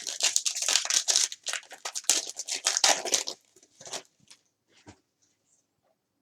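Plastic foil wrapper of a trading-card pack crinkling and tearing as it is opened, a dense crackle for about three seconds that thins to a few faint ticks and stops.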